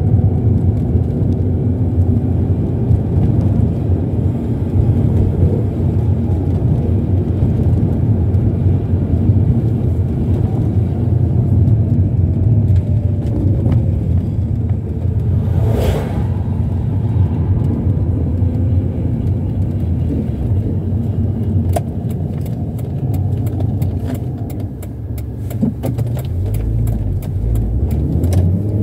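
Mazda MX-6 heard from inside the cabin while driven gently: a steady engine and road rumble, the engine pitch drifting up and down. There is a short hiss about halfway through and a run of light clicks and ticks in the last quarter, and the engine pitch starts to rise right at the end as the car accelerates.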